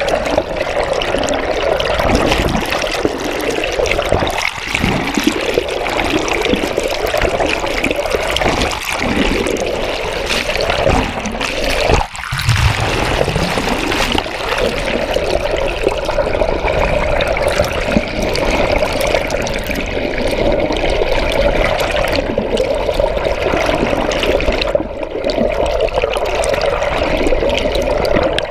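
Water rushing and bubbling steadily past a GoPro camera housing held underwater from a moving boat, with a short drop in level about twelve seconds in.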